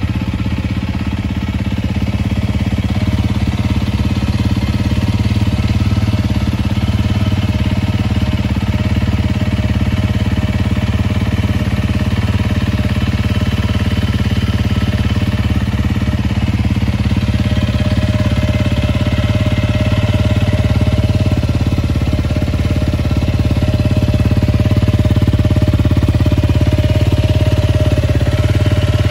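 Honda CRF250L's single-cylinder four-stroke engine idling steadily through a Yoshimura aftermarket exhaust.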